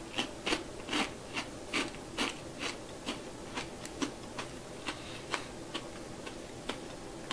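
Mouth chewing a crisp roasted black rice cracker: regular crunches about two a second, growing softer and further apart toward the end.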